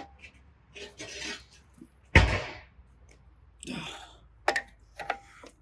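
Adjustable spanner working a hexagon hydraulic fitting tight on a log splitter ram: short metallic scrapes and clinks as the spanner is turned and reset, with one heavy knock just after two seconds in and sharp clicks near the end.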